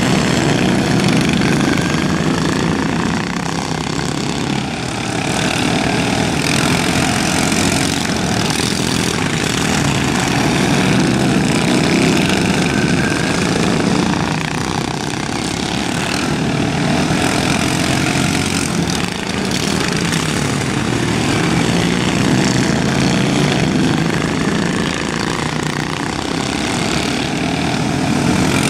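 Several racing riding lawn mowers with Briggs & Stratton engines running hard together around a dirt track, the engine noise swelling and fading as the pack comes past.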